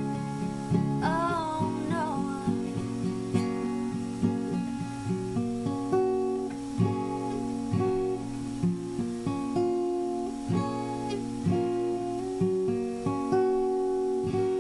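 Acoustic guitar played solo, picked and strummed chords in a steady rhythm. A woman sings one short wavering note about a second in.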